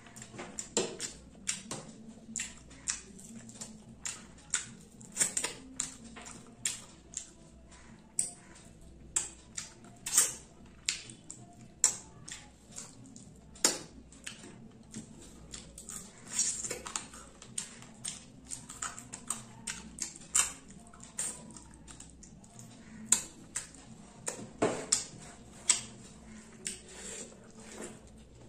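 Close-up eating sounds: irregular wet clicks and smacks of chewing and lips, a few each second, as mouthfuls of rice are eaten by hand, picked up by a clip-on microphone.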